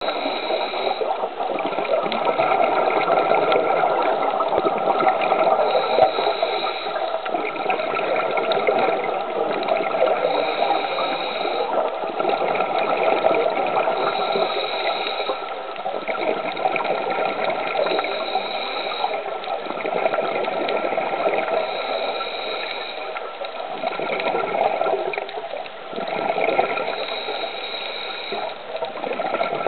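Scuba diver's regulator breathing and exhaled bubbles heard underwater, in a slow repeating cycle every few seconds.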